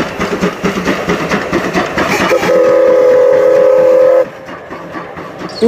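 Steam locomotive running with a rhythmic chuffing, then its steam whistle blown as one steady multi-note chord for about two seconds, starting about two and a half seconds in and cutting off sharply, leaving a quieter running sound.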